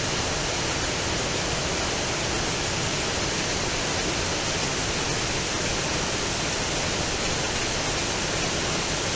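Shallow river rapids, white water rushing over a flat rock bed, making a steady, even rushing noise.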